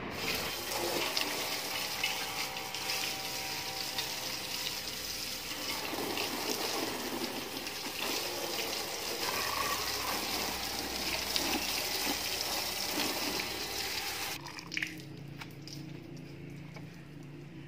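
Water splashing and pouring over a motorcycle as it is washed down, a steady rush that stops about 14 seconds in, leaving a much quieter stretch.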